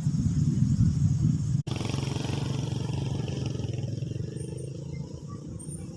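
Low rumbling noise, then, after a sudden cut, a motor engine running steadily with an even low hum that slowly fades.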